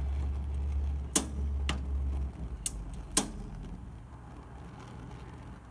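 Piezo igniter of a Camp Chef propane stove burner snapping as the knob is pushed and turned to light the left burner: about four sharp clicks, two of them much louder, over a low rumble that fades away about two seconds in.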